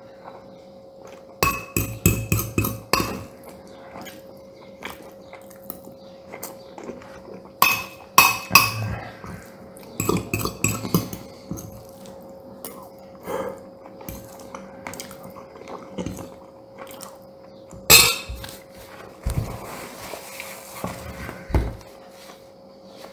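Metal cutlery clinking and scraping against a ceramic bowl as risotto is scooped up. It comes in several short clusters of clinks with single taps between, over a faint steady hum.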